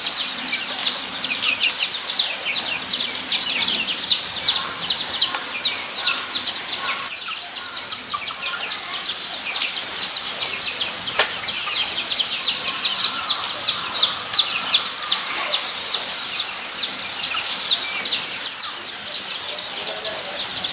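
A group of guinea pigs squeaking: a dense, continuous chorus of short, high-pitched squeaks, each dropping in pitch, several a second.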